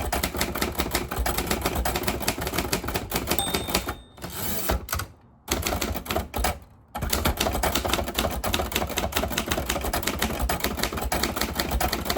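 1950s Royal Quiet De Luxe manual typewriter being typed on, a fast run of keystroke clacks, broken by short pauses about four to seven seconds in.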